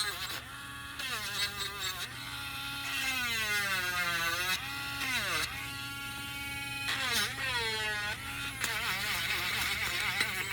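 Electric sander running against wood, its motor whine sagging in pitch and recovering several times as it is pressed into the work.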